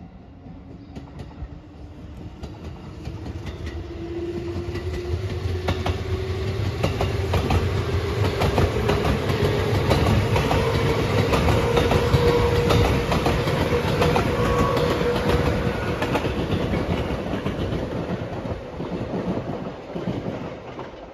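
JR 213 series electric train passing close by: wheels clacking over the rail joints, with a whine that rises steadily in pitch. It grows louder as the train approaches, is loudest about halfway through as the cars go by, then fades.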